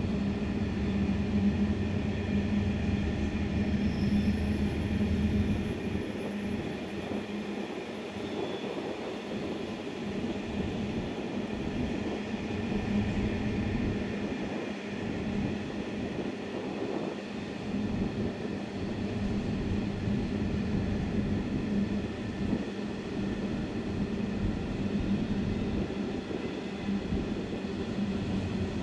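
Long empty iron-ore train rolling past: a continuous rumble and clatter of the empty wagons' wheels on the rails, over a steady hum. A deeper low rumble fades out about five seconds in.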